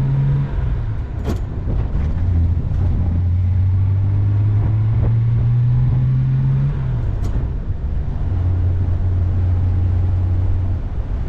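1961 Jaguar E-Type's 3.8-litre straight-six engine running as the car drives along, its pitch climbing slowly and then dropping about seven seconds in before settling steady and lower. Two sharp clicks are heard, one a little after the start and one as the revs drop.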